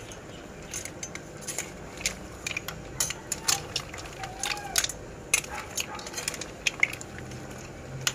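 Metal utensil clinking and scraping against a large metal wok as shell-on shrimp, mussels and corn are tossed: a string of sharp, irregular clicks.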